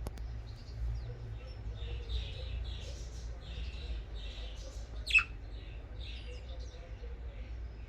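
Pet budgerigars chattering softly, with one sharp, loud chirp about five seconds in. A steady low hum runs underneath.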